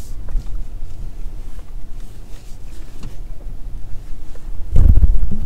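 Car rolling slowly, heard from inside the cabin as a steady low rumble. A loud low thump comes near the end.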